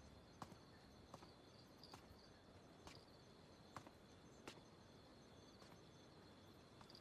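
Very faint night ambience of crickets chirping steadily, with a few soft, scattered ticks.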